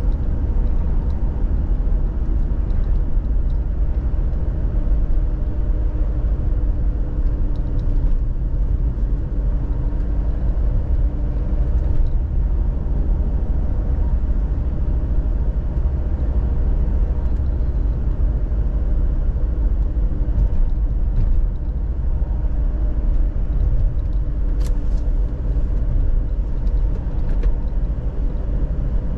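A car driving at a steady pace: a continuous low rumble of engine and tyre noise with a faint steady hum.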